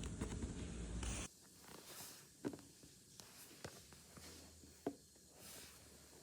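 Hands handling a blind-box package and figure: soft rustling and scraping that cuts off abruptly just over a second in, then three light clicks about a second apart.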